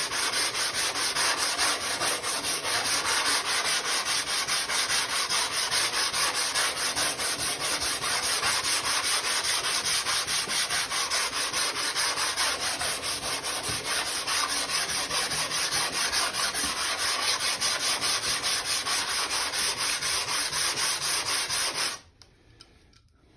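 Sole of a hand plane being rubbed back and forth on 150-grit sandpaper over glass, a steady rasping scrape of quick repeated strokes, lapping the sole flat. The scraping stops abruptly near the end.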